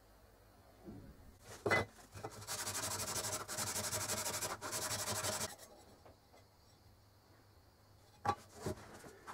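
An abrasive pad is rubbed rapidly back and forth over a polished metal lamp part for about three seconds in the middle. A few short knocks come from handling the piece, one before the rubbing and two near the end.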